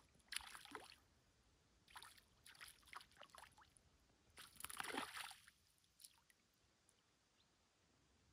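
Faint water splashes and sloshing in three short bouts over the first five seconds, from a hooked fish being drawn through the water near the surface.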